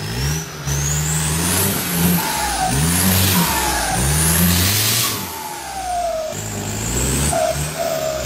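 Diesel engine of a lifted 4x4 pickup revving hard under load as it churns up a muddy trail, its pitch rising and falling with each blip of the throttle, with a high whine rising and falling above it.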